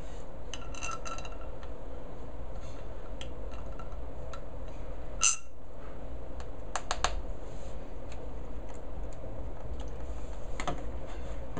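Light scattered clicks and taps of hands handling a patio door foot lock and its small hardware against an aluminium sliding door frame and track, with one sharper click about five seconds in and a few quick ones a little after.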